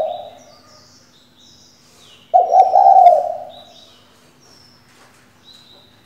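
Female spotted dove giving one low, rough coo about a second long, a little over two seconds in. Small birds chirp high and thin in the background.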